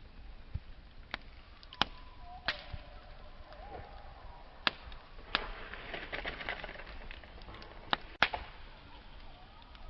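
A wood campfire burning, with a steady low hiss of flame broken by several sharp pops and snaps of burning wood. The crackling thickens a little after the middle, and a faint wavering whistle runs beneath it.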